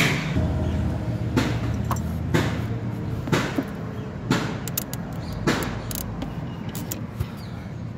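Hands working at the plastic diesel fuel filter housing of a Maruti Suzuki Swift diesel: sharp clicks about once a second, then a few quick small clicks, over a steady low hum.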